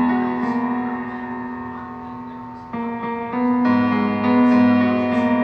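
Background music: sustained instrumental chords, with a new chord coming in about two and a half seconds in.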